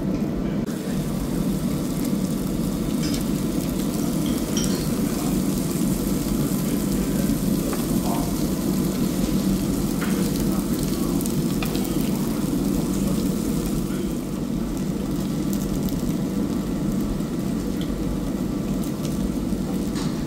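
Food sizzling on a Japanese barbecue grill over a steady low rumble, with a few light clicks.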